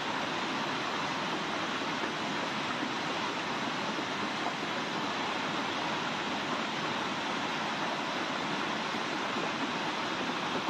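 Floodwater rushing down a narrow street in a fast, muddy torrent: a steady, unbroken roar of water.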